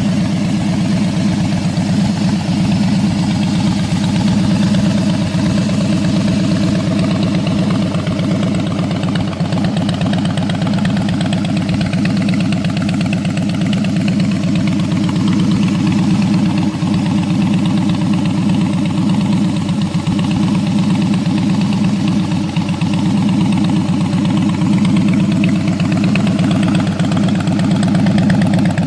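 Harley-Davidson Fat Boy's air-cooled V-twin idling steadily through black slash-cut exhaust pipes, with an even, unchanging beat of firing pulses.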